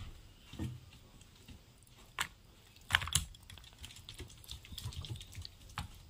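Scattered clicks, taps and soft thuds as cooked chicken pieces are tipped from a glass bowl onto a banana leaf, with the loudest sharp knock about three seconds in.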